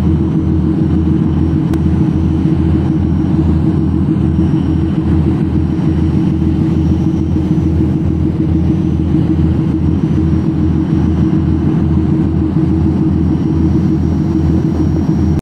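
Tugboat's diesel engines running steadily under towing load, a loud low rumble with an even pulsing throb.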